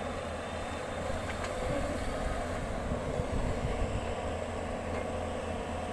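A construction machine's engine running steadily, a low rumble.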